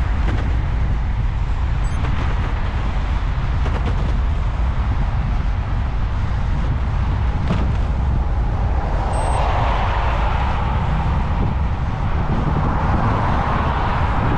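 Steady low wind rumble on the microphone of a moving camera, riding along a road. From about nine seconds in, a rising rush of tyre and engine noise as a car passes and pulls ahead.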